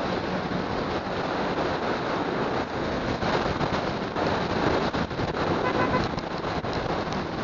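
Wind rushing over the microphone of a motorcycle under way, with the motorcycle's engine running underneath.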